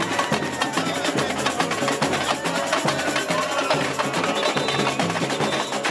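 Samba percussion music with a dense, fast, steady drum beat made of many sharp strokes over a pulsing bass.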